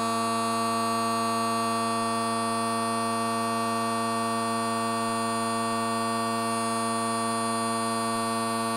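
Bagpipe bass and tenor drones sounding together on one steady, unbroken tone, tuned so that they lock into each other.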